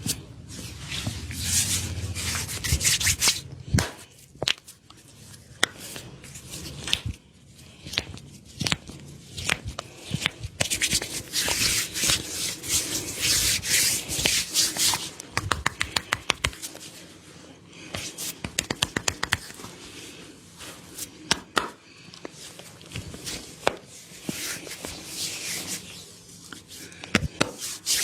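Hands rubbing over skin in a neck massage, broken several times by runs of rapid clicks.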